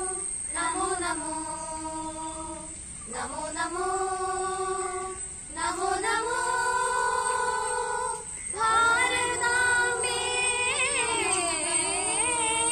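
A small group of school students, mostly girls, singing a Malayalam patriotic song together, holding long notes with short breath breaks between phrases.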